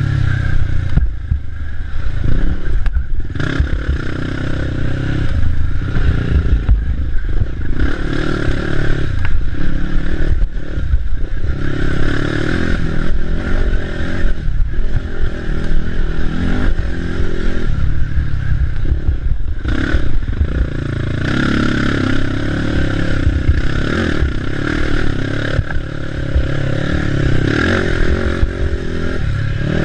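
Race ATV's engine revving hard and easing off again and again over rough off-road terrain, with constant rattling and clatter from the chassis.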